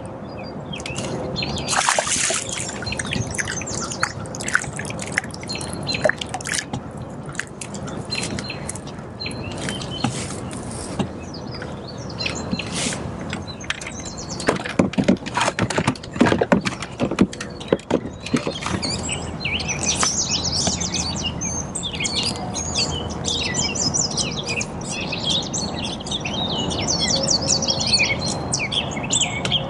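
Wild birds singing and chirping, thicker over the second half. There are several sharp clicks and knocks in the middle, over a steady low rush.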